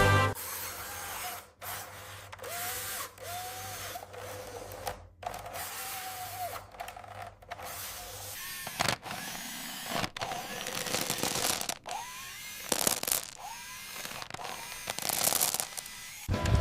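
Cartoon machinery sound effects: a small motor whirring, with several short rising-and-falling whines and a few sharp clunks.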